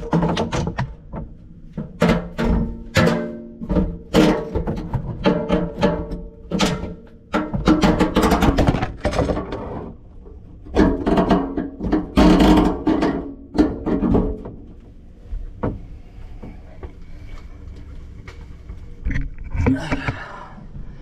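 Irregular knocks and clunks from work under a kitchen sink, tools and hands striking the sink and faucet fittings, many of them followed by a short ringing tone. The knocks come thick for the first half and thin out after about fourteen seconds.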